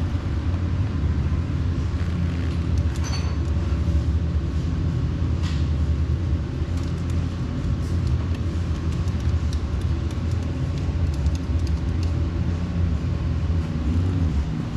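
Car engine running steadily at low revs, with no revving up or down, and a few faint clicks on top.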